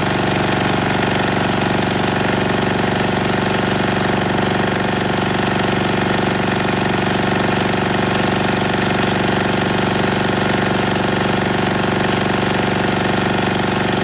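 Denyo DA-2405 diesel generator running steadily under about 1.7 kW of heater load on water-emulsified diesel (20% water by weight).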